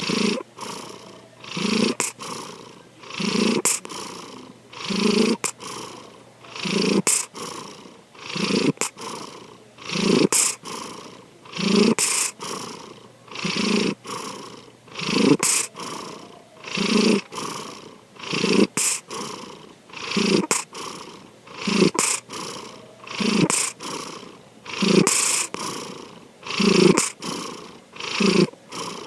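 Domestic cat snoring in its sleep: one snore with each breath, about one every second and a half to two seconds, each a low snore followed by a breathy hiss.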